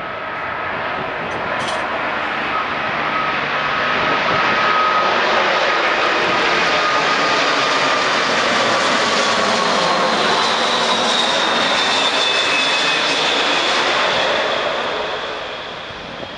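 Boeing 747-400F's four Rolls-Royce turbofan engines at approach power as the jet passes low overhead on landing approach. The jet noise builds over the first few seconds, stays loud, then fades near the end, and a fan whine slides slowly down in pitch as the plane goes by.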